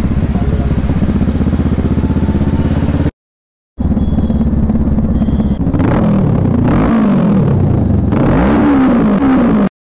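Kawasaki 650 parallel-twin motorcycle engine running under way. The sound cuts out completely for about half a second a little after three seconds in. In the second half the revs rise and fall several times as the bike accelerates and shifts gears.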